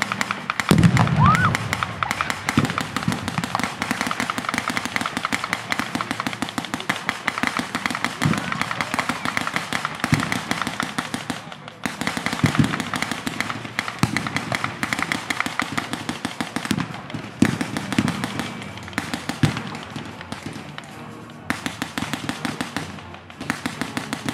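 Continuous rapid crackle of blank gunfire and pyrotechnic bangs from a staged battle, with a louder deep boom about a second in.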